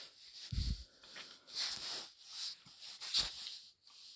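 Handling noise from a LEGO brick model: a low bump about half a second in and a sharp plastic click a little after three seconds, with soft rustling hiss between.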